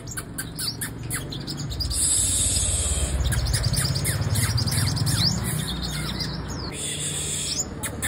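Caged female sunbird calling in a rapid run of short, high chirps, each note falling quickly in pitch. A low steady hum runs underneath.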